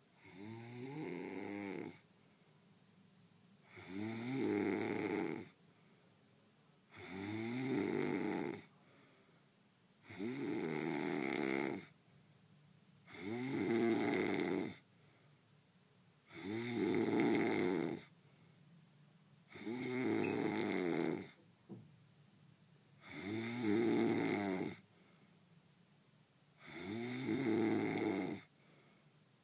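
A man snoring in his sleep: nine regular snores, one about every three seconds, each lasting a second and a half to two seconds with quiet breaths between.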